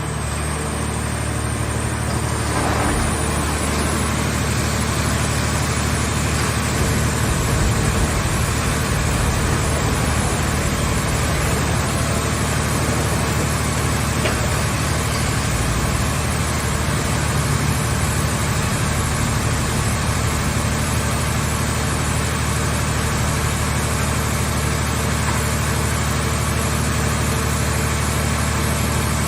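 Portable scrap-car baler's engine running steadily under a constant noisy hiss, with no breaks or distinct impacts.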